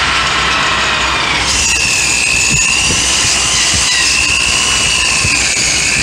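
Corded electric drill spinning a wire wheel against the steel steering knuckle and ball-joint area, scrubbing off rust and grime. A steady high whine over a grinding scrape; the whine steadies at a slightly lower pitch about one and a half seconds in.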